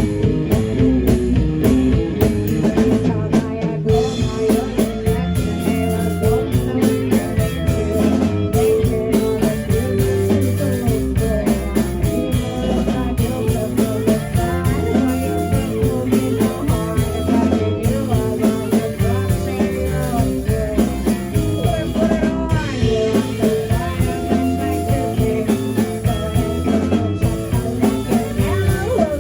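Rock band playing a song with electric guitar and drum kit at a steady beat.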